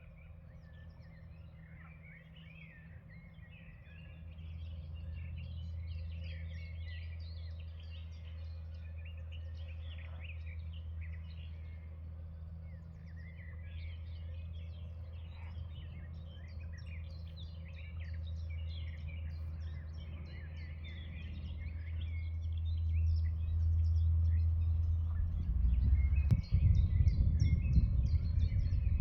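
Several small songbirds singing and chirping together in a busy chorus of short trills and tweets. Underneath is a steady low rumble of wind on the microphone, which turns gusty and louder in the last few seconds.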